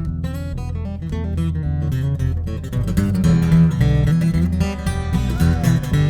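Acoustic guitar playing an instrumental fingerstyle tune, with a bass playing low notes underneath. The playing gets louder and busier about halfway through.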